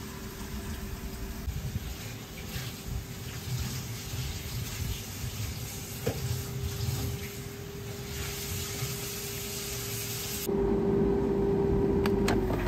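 Air fryer running with a steady fan hum and a light sizzling hiss. About ten and a half seconds in it gets louder, and near the end a couple of clicks come from the drawer being pulled open, as the hum begins to drop in pitch while the fan spins down.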